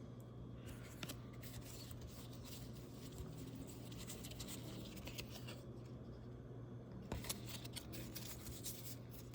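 Faint ticks and scrapes of cardboard trading cards being handled and flipped through, over a steady low hum.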